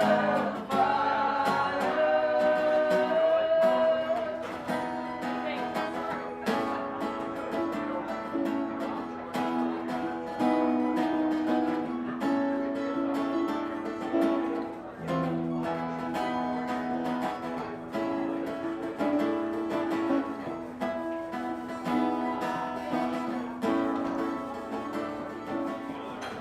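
Acoustic guitars strumming chords in an instrumental passage of a slow folk-rock song. A held sung note trails off over the first few seconds.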